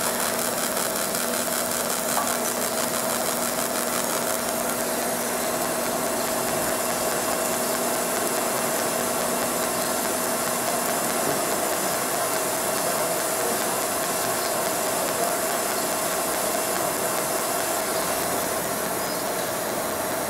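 Fiber laser marking machine running while it deep-engraves an aluminium plate: a steady mechanical buzz with a constant held tone. A lower hum stops about halfway through.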